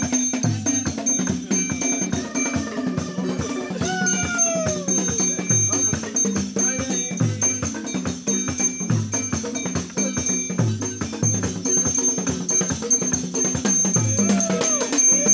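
Traditional drumming with rattles keeping a fast, steady dance beat. A voice cries out with a falling pitch about four seconds in and again near the end.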